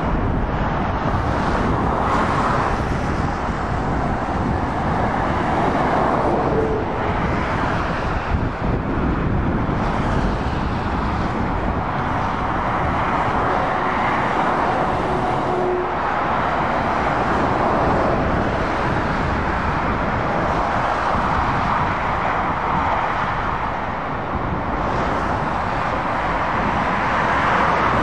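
Motorway traffic: lorries and cars passing, a steady roar of tyres and engines that swells as each vehicle goes by and eases off between them.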